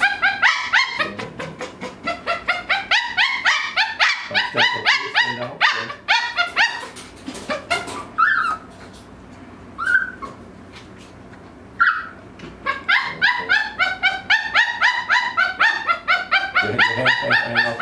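A 12-year-old female Maltese wearing a muzzle screaming: short high-pitched yelping cries in rapid runs of several a second, easing to three single cries about halfway through before the fast run starts again. The distress cries are ones the owner puts down mostly to an itchy skin infection on the face.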